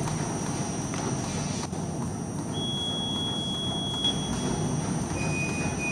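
RQLA computer-controlled side-sealing plastic bag machine running: a steady, even mechanical hum with a thin high whine above it. Two short high tones sound over it, one starting a little past two seconds in and lasting over a second, the other near the end.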